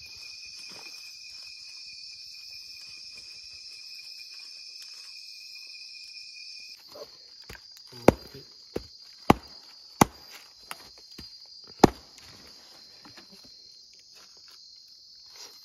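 Night insects, crickets, chirring steadily in a high, continuous drone, with a steady lower single-pitched insect tone that stops abruptly about seven seconds in. From about eight to twelve seconds in come half a dozen sharp knocks or cracks, the loudest sounds.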